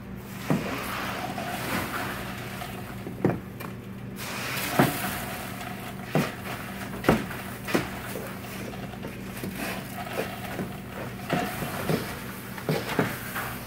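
Wooden pole raking and pushing nugget ice around in a stainless-steel ice bin: the ice rustles and shifts, with a dozen or so irregular sharp knocks of the pole against the bin, over a steady low hum.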